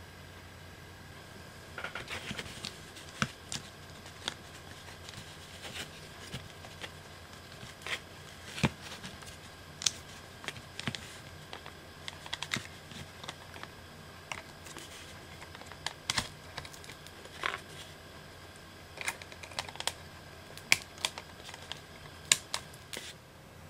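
Small plastic toy parts of a Bandai magnet-kit figure clicking and snapping against each other as they are handled and folded, in irregular clicks that begin about two seconds in.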